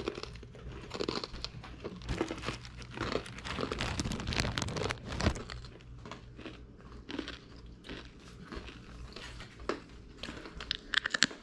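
Plastic food bags and foil packaging crinkling and rustling as hands rummage through them, over a steady low hum, with quicker, sharper crackles near the end.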